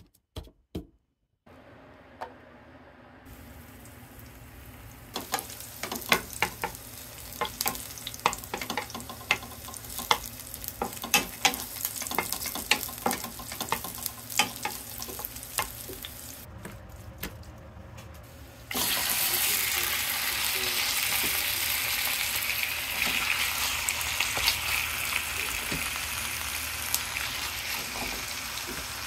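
Garlic cloves frying in oil in a nonstick pan, with a wooden spatula clicking and scraping against the pan as they are stirred. About two-thirds of the way in, a loud, steady sizzle starts as raw chicken pieces go into the hot oil, and it carries on to the end.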